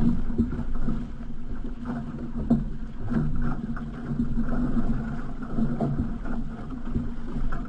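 Water rushing and splashing along the hull of an outrigger canoe under way, with irregular splashes from the paddle strokes.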